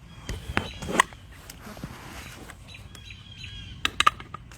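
Sharp metallic clicks and clacks of AR-15 parts being fitted together by hand as the rifle is reassembled, with the pivot pin going back in. The loudest knocks come about a second in and again near the end. Birds chirp faintly in the background.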